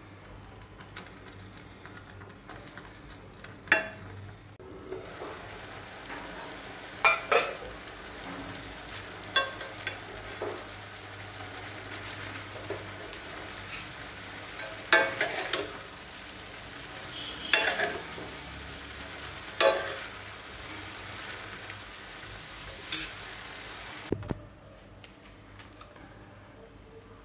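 Instant noodles frying in a metal wok with a steady sizzle while being stirred and tossed. The utensils knock and scrape sharply against the pan about ten times. The sizzle dies down near the end.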